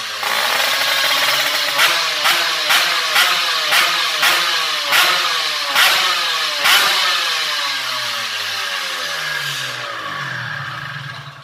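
Drag-racing motorcycle engine on a dyno running down in pitch after a run, with a string of about nine sharp cracks that come slower and slower, then fading out near the end.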